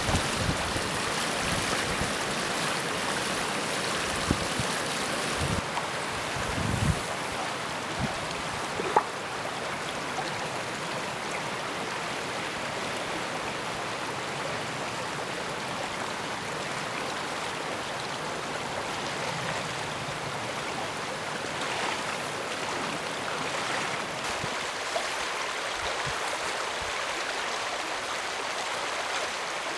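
River water flowing in a steady rush, with a few gusts of wind buffeting the microphone in the first several seconds.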